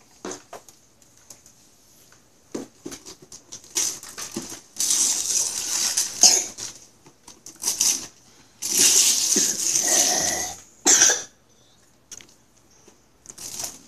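Wrapping paper being torn and crumpled off a present, in several rustling bursts, the two longest lasting a couple of seconds each, with a short sharp rip about eleven seconds in.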